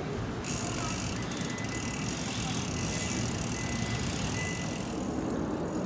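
Steady rushing noise of riding bicycles along a paved road: tyres rolling and wind on the microphone.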